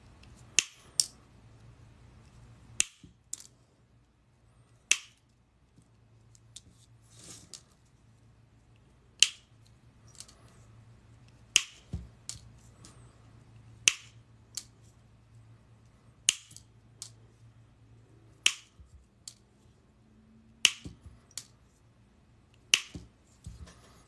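End-cutting nippers snipping through a coil of steel paperclip wire to cut it into jump rings for chainmaille. Each cut is a sharp snip, coming every second or two and often in quick pairs.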